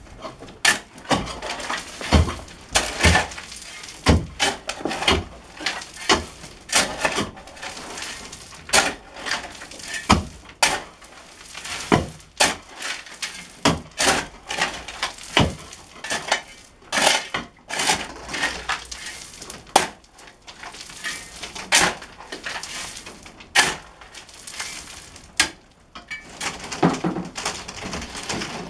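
Steel shovel blade striking and scraping into stony, gravelly soil while a trench is dug: repeated sharp clinks and scrapes, irregular, about one a second.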